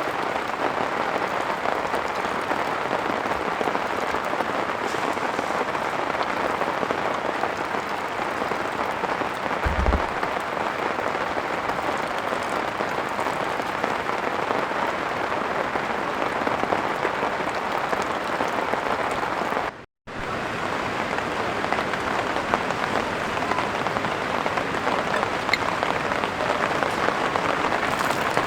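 Heavy rain falling steadily, a dense even hiss of drops. A dull low thump comes about a third of the way through, and the sound cuts out for a split second about two thirds through.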